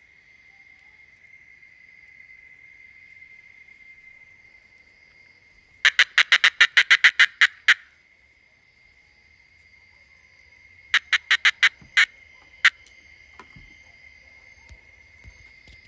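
A small cicada (chicharrita) giving bursts of sharp, rapid clicks in a Morse-code-like pattern: a run of about a dozen clicks lasting about two seconds, then a shorter run of about six a few seconds later. A steady high-pitched tone continues underneath.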